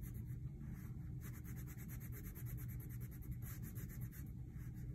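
Wax crayon scribbling on paper in quick back-and-forth strokes, coloring in a shape with yellow, over a low steady hum.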